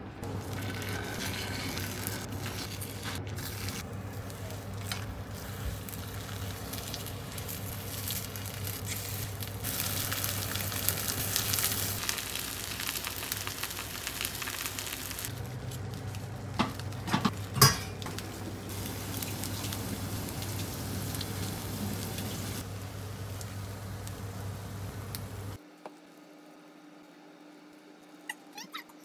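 Food sizzling as it fries in a pan, over a steady low hum, with a few sharp clinks about two-thirds of the way through. The sizzling cuts off abruptly near the end.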